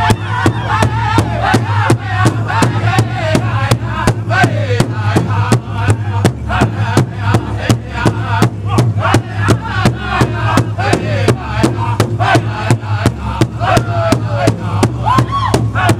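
Powwow drum group singing an intertribal song in high voices, with several singers striking a large hide powwow drum in unison at a steady, even beat.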